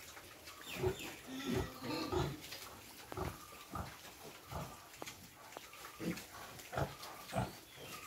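Pigs grunting: a quick run of grunts and squeaky calls about a second in, then single short grunts every half-second to a second.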